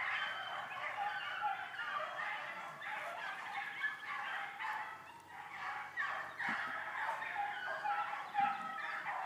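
A pack of rabbit hounds baying on a rabbit's trail: many short, overlapping yelps and bawls that keep going without a break.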